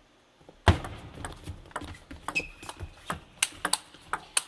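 Table tennis rally: the ball clicking off rackets and table in quick succession, starting sharply about two-thirds of a second in after near silence. A short high squeak comes about two and a half seconds in.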